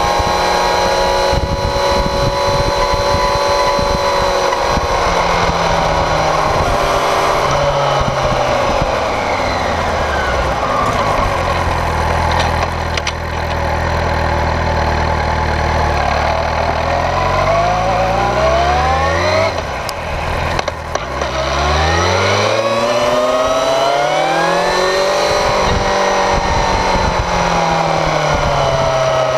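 Motorcycle engine heard close to the rear wheel while riding, with tyre and wind noise underneath. The engine note falls as the bike slows about a third of the way in, then climbs in steps through gear changes, with a brief drop near two-thirds of the way in, and rises again.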